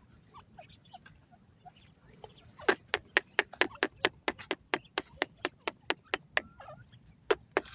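Grey francolin (teetar) giving a fast series of sharp clicking chik notes, about four or five a second, after a few faint soft notes; the run pauses briefly and starts again near the end.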